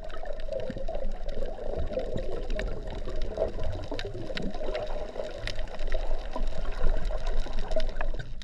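Sea water noise, steady and muffled, with scattered faint clicks.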